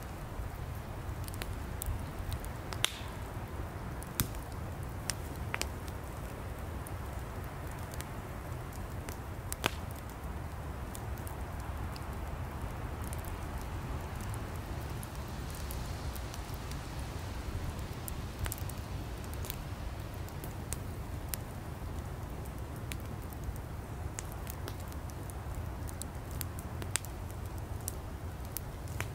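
Campfire of firewood burning with a steady low rumble and scattered sharp crackles and pops.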